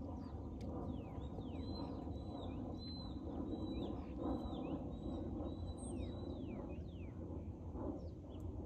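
A songbird singing a rapid run of high chirps: short notes sweeping downward, mixed with arched whistles. Under it is a steady low rushing noise.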